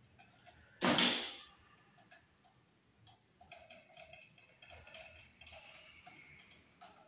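A screwdriver tightening a wire onto a wiring device's terminal screw: a run of small clicks and faint squeaky scraping. A single sudden loud noise comes about a second in.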